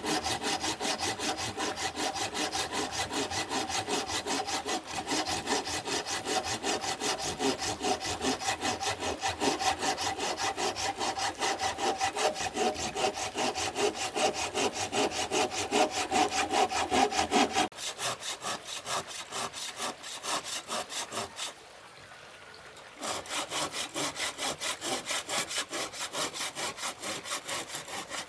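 Hand saw cutting wood in quick, even strokes, about four a second. The sound turns thinner about two-thirds of the way through, stops for a second or so, then resumes.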